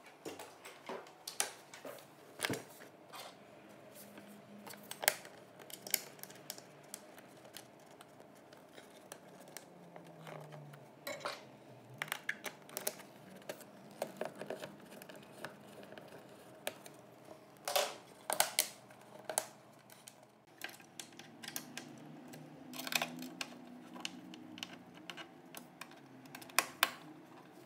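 Irregular small clicks, taps and scrapes of hand assembly: wall-bed hardware being handled and fitted into the upper link pivot hole, and a hex key turning a bolt in a black pivot bracket.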